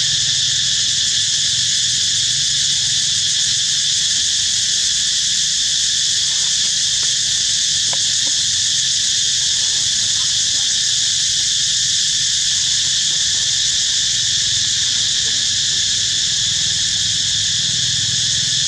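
A dense chorus of insects droning steadily at a high pitch, unbroken and even in level.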